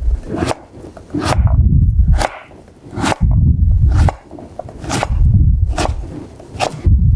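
Chef's knife dicing delicata squash on a cutting board: a steady series of chops, the blade knocking down on the board about once or twice a second, each with a dull thump.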